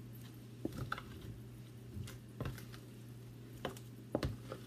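A spoon stirring shrimp through a thick cornstarch and breadcrumb paste in a plastic container: scattered clicks and scrapes against the plastic with soft squishing of the wet coating, over a steady low hum.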